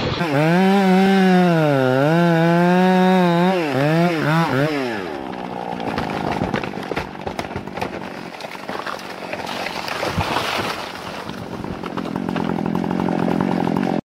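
Chainsaw running at high revs while felling a tree, its pitch wavering and dipping under the load of the cut, then falling away about five seconds in. After that comes a rougher, noisier stretch with scattered sharp cracks.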